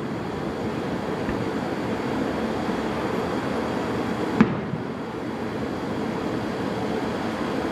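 A single firework bang about four and a half seconds in, briefly making the recording duck, over a steady background rumble.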